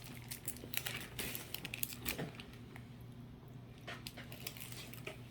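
Faint rustling and scattered light ticks of Pokémon trading cards being handled, over a steady low hum.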